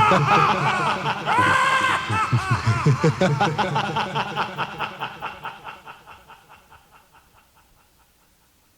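Spooky sound-effect laughter, a rapid run of ha-ha pulses with rising and falling pitch, fading away over the last few seconds.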